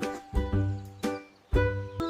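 Background music: sustained pitched notes over low bass notes that land twice, about a second apart.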